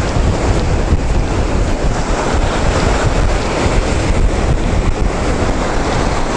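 Strong wind buffeting the microphone with a steady low rumble, over the rush of surf breaking on a sandy shore in a rough sea.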